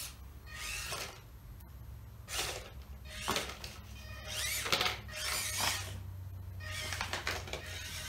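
The small electric motor and gear drive of an EAZY RC Arizona 1/18-scale mini RC crawler whirring in several short bursts. The pitch rises and falls as the throttle is fed on and off in small amounts.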